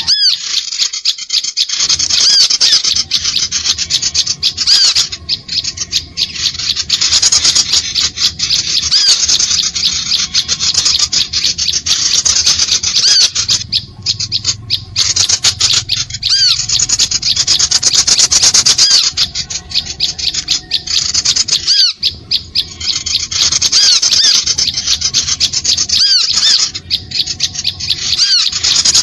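Bird-lure recording of small birds: dense, very fast, high-pitched chattering with short chirps, running almost without a break and dropping out briefly a few times.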